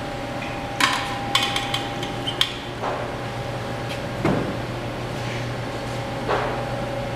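Sharp metallic clinks and clatter, clustered between about one and two and a half seconds in, followed by three dull knocks spread over the next few seconds, all over a steady low hum.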